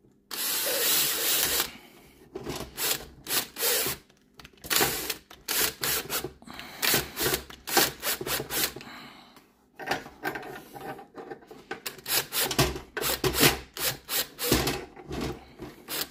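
A drill driving a screw through the repair piece into a toaster's hinge, run in one longer burst near the start and then in many short bursts as the screw is seated.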